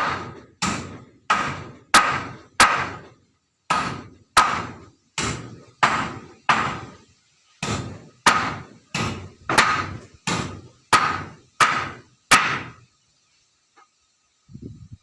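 Hammer driving nails into wood: about eighteen sharp, evenly paced strikes with a short metallic ring, in three runs with brief pauses, stopping about 12.5 seconds in, followed by a couple of faint knocks.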